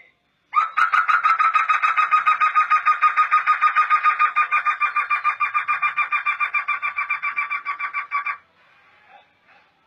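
Black laughingthrush (poksay hitam) giving a long, fast run of even, same-pitched notes, about eight a second. It starts about half a second in, runs for nearly eight seconds and stops abruptly.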